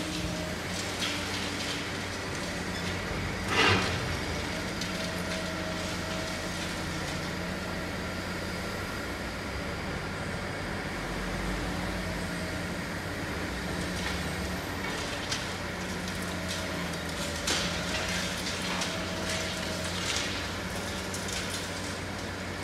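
Diesel engine and hydraulics of a Liebherr 954C high-reach demolition excavator running steadily, with a whine that comes and goes. Over it come short crunches of concrete breaking and rubble falling, the loudest about four seconds in, with more in the second half.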